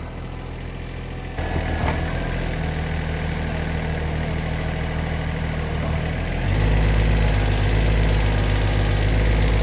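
Tractor engine running steadily, its note stepping up about a second and a half in and growing louder again around six and a half seconds as it works lifting logs off a trailer.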